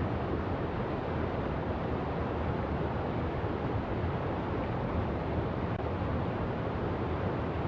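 Steady, even rushing noise, strongest in the low range, with no distinct events.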